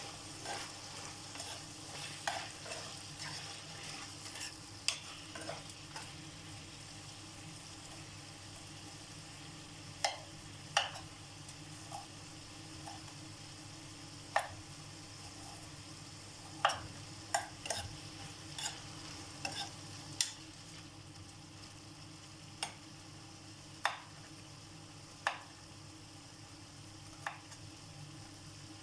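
Chicken liver and onions frying in butter in a pan, a steady sizzle, with a utensil stirring and knocking sharply against the pan at irregular moments.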